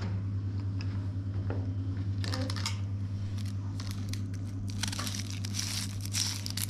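Crinkling, crackling handling noise in two spells, one about two seconds in and a longer one from about five seconds, over a steady low hum.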